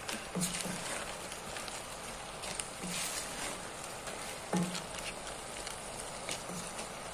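Shrimp sizzling in a metal pot while being stirred with a wooden spoon, with a steady crackling hiss and a few soft knocks of the spoon against the pot.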